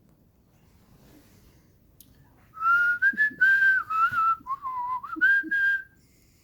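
A person whistling a short tune: about two and a half seconds of near quiet, then a run of held notes that step up and down in pitch for about three seconds.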